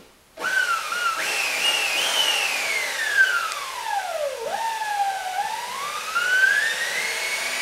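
Electric motorcycle's ME-1003 motor, driven by an Alltrax 7245 controller, whining as the throttle is twisted with no chain fitted. The pitch climbs in steps to a high whine, falls steadily to a low point about halfway through, then rises again and holds high near the end.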